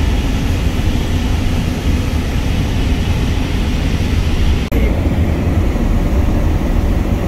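Loud wind and road noise of a car travelling at speed: a heavy low rumble with a steady hiss above it. It cuts out for an instant about two-thirds of the way through, then goes on the same.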